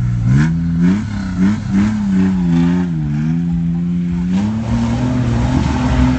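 Off-road jeep engine revving hard as it accelerates into a mud course; the engine note jumps up in pitch several times in the first two seconds, dips briefly, then holds high and steady.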